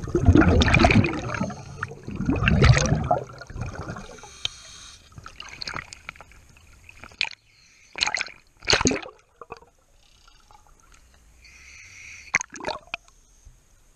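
Water sloshing and gurgling around a diver's camera as it comes up at the surface beside a concrete seawall: two long rushes in the first few seconds, then a few short, separate splashes.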